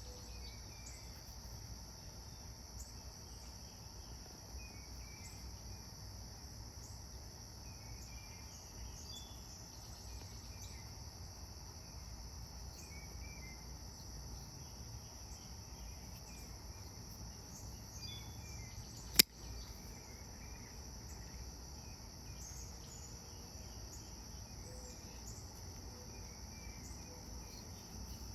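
Steady high-pitched chorus of crickets, with faint scattered chirps. One sharp click about two-thirds of the way through.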